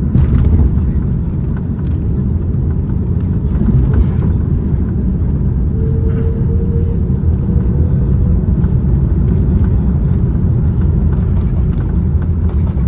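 Loud, steady low rumble in the cabin of an Airbus A330-200 airliner during landing, with a short knock right at the start and a faint steady tone for a couple of seconds midway.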